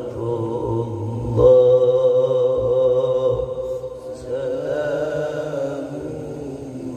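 A man chanting in Arabic in the melismatic qari style, holding long wavering notes with ornaments. A new phrase begins about a second and a half in, and another about four seconds in.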